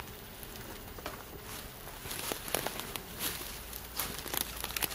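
Dry twigs, branches and leaf litter rustling and crackling as someone pushes in through forest undergrowth. A quick run of sharp snaps and crackles starts about two seconds in.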